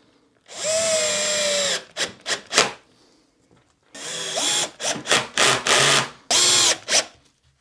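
Cordless drill-driver driving screws into the front edge of an OSB worktop, drawing the panels together. The motor runs for about a second with its whine dropping slightly in pitch under load, then comes a few short bursts, and from about four seconds in a longer stop-start run of several bursts.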